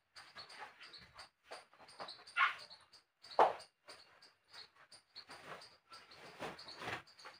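Rustling and scratching of yarn and a crochet hook being worked in the hands close to the microphone, with two louder sounds about a second apart. Short high chirps repeat faintly underneath.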